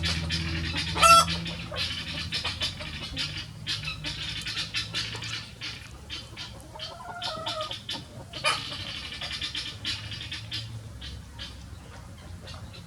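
Free-ranging chickens: one loud, short squawk about a second in, a hen's drawn-out call about halfway through, and many small scattered clicks and ticks.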